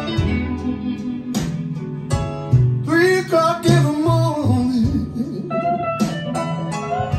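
Blues song led by guitar, with a bending melody line in the middle, played back through Chario Hiper 2000 loudspeakers driven by an Arcam SA30 amplifier.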